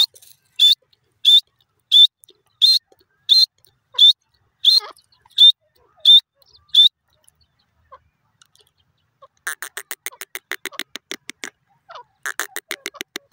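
Grey francolin calling: about ten loud, sharp, high notes, one every two-thirds of a second. After a pause of a couple of seconds come two bursts of fast, rattling chatter.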